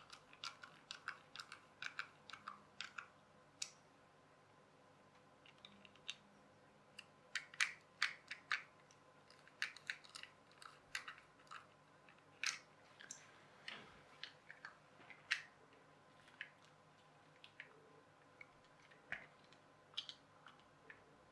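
Light, irregular clicks and taps of small plastic gears and a metal screwdriver tip working inside a clear plastic clockwork toy car gearbox as it is pushed back together.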